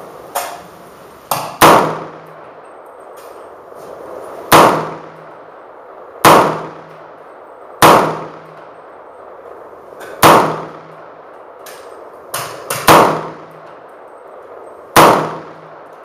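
AR-15 rifle in .300 AAC Blackout firing slow, aimed single shots: seven loud cracks about two seconds apart, each with a brief ring-out, and a few fainter shots among them.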